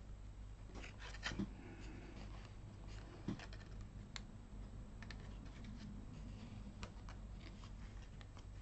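Faint, scattered light clicks and scratches of a metal-tipped pick tool lifting small adhesive rhinestones off their backing sheet, with a few sharper ticks among them.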